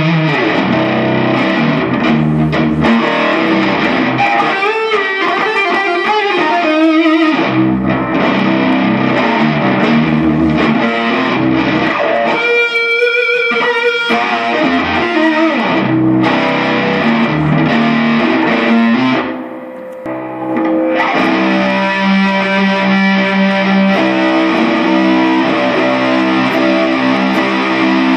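Guitar music, loud, recorded through a Samsung Galaxy S III phone's microphone. It dips briefly about twenty seconds in, then goes on with held notes.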